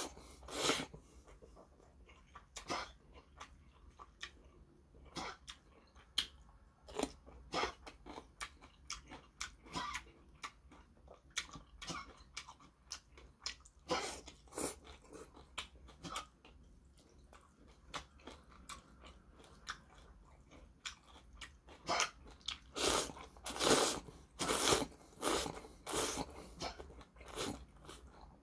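Close-up eating sounds of spaghetti in spicy loach soup: wet slurps of noodles and chewing, a scatter of short mouth noises, with a louder, quicker run of slurps near the end.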